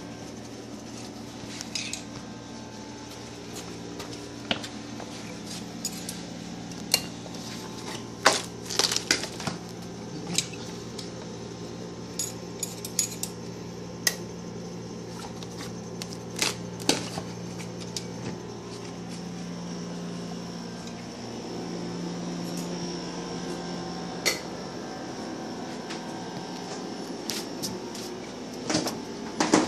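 Scattered sharp clicks and clinks at irregular intervals over a steady low hum.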